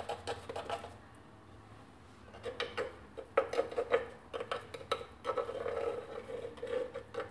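A spoon clicking and scraping against the rim of a heavy pan while it presses the edge of harcha dough even. The first two seconds hold only a few faint taps, and from about two and a half seconds in a quick run of light knocks follows, each with a short metallic ring.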